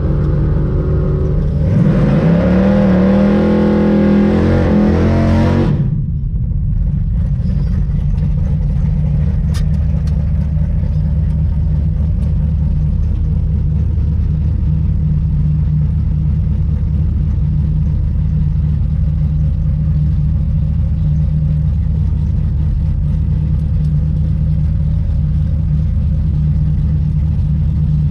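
Big-block V8 drag car engine idling steadily. About two seconds in, a louder engine revs, rising in pitch for about four seconds before it drops away.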